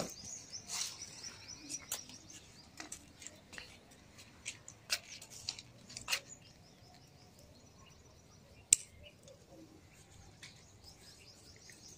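Faint rustling of tomato plants and scattered light clicks as ripening tomatoes are picked by hand, with one sharp click about nine seconds in. Birds chirp faintly in the background.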